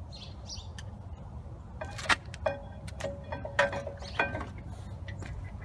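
Metal clinks, three or four sharp knocks that each ring briefly, as a new brake caliper and its mounting bolts are fitted against the caliper bracket, over a steady low rumble.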